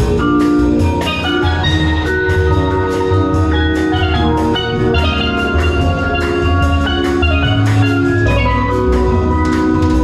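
Background music: bright mallet-like melody over a steady percussive beat.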